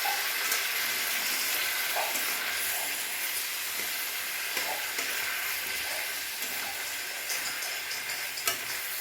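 Spiced potato and drumstick curry sizzling in a kadhai as the masala paste, with a little water just added, is stirred. There are a few faint scrapes and knocks of the spoon against the pan.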